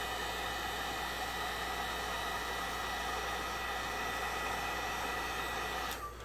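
Electric heat gun running steadily, a rush of blown air with a faint steady whine from its fan, switched off about six seconds in.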